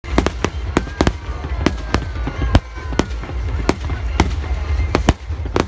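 Aerial fireworks bursting in quick, irregular succession: a string of sharp bangs, roughly three a second.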